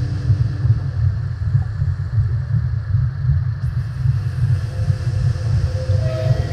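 A deep, churning low rumble in an ambient sound-design piece, with faint held tones above it: one fading out in the first second, another coming in near the end.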